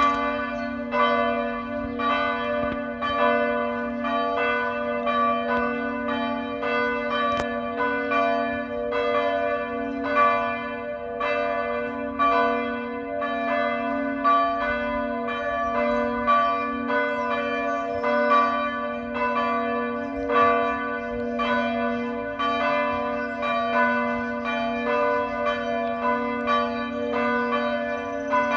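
Partial peal of the Maredsous Abbey church bells, Causard-cast bronze swinging bells, ringing together with strokes falling in an uneven overlapping pattern about twice a second over a continuous ringing hum.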